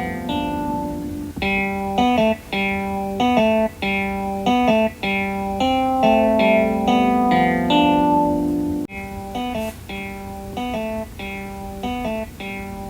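Transformation belt's standby music loop: a plucked-string, guitar-like melody of short repeating notes, signalling the belt is armed and waiting for the transformation to be triggered. It cuts out briefly about nine seconds in, then carries on.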